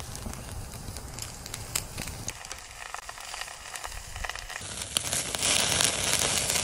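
Lump charcoal fire crackling and popping under lamb skewers on a wire grill. From about five seconds in, a louder, steady hiss of fat sizzling and flaring on the coals.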